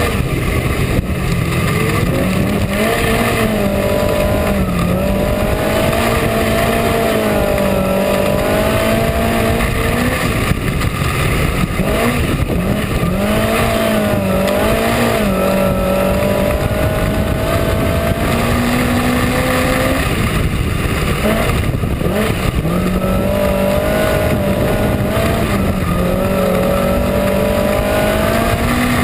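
Minisprint race car's engine at racing speed, heard from the cockpit. Its note dips and climbs again every few seconds as the throttle comes off and goes back on around the dirt oval.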